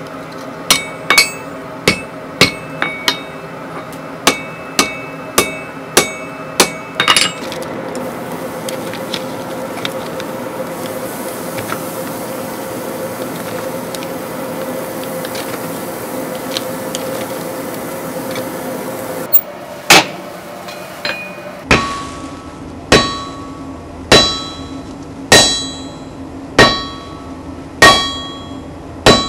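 Hand hammer striking hot iron on an anvil, quick irregular blows, then a steady hissing sizzle of several seconds as the hot piece is quenched in a bucket, then hammer blows again about once a second, each leaving the anvil ringing.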